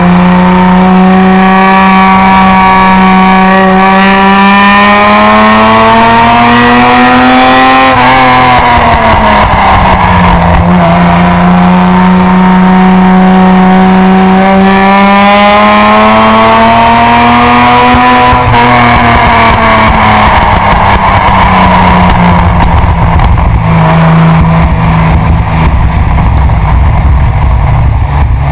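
Datsun 240Z's inline-six exhaust, heard close at the tailpipe while driving. The engine note climbs steadily under acceleration, drops back about eight seconds in, and climbs again. It eases off around eighteen seconds in and runs steadier and lower after that, with road noise underneath.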